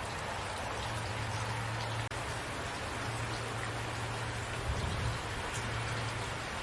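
Steady rainfall with individual drops ticking, over a low steady hum that swells briefly about five seconds in.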